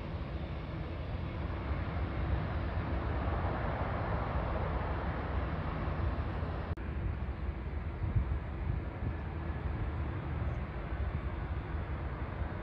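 Steady outdoor rumble with distant jet airliner engine noise, swelling a few seconds in, cut off for an instant about seven seconds in.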